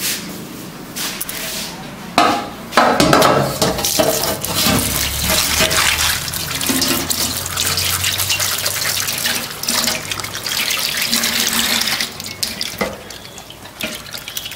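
Kitchen tap running into a sink as cabbage leaves are rinsed under it. The water comes on about two seconds in and eases off near the end.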